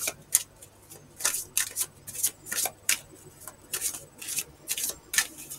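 A deck of tarot cards being shuffled and handled, a quick irregular run of short papery swishes, roughly three a second.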